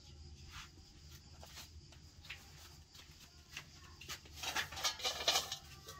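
Light scattered clicks of a metal pan being handled, then, about four seconds in, a denser scraping rustle as toasted flour for halva is tipped from a large metal pan into an enamel basin.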